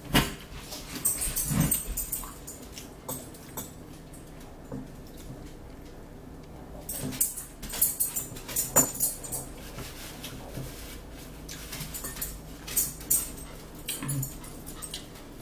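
Close-up eating sounds: chewing and lip-smacking on a tuna wrap, in clusters of crackly clicks with short pauses between.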